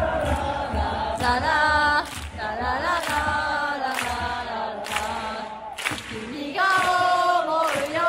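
Football supporters chanting in unison in a stadium, sung notes held and changing pitch every second or so, with a regular beat about once a second.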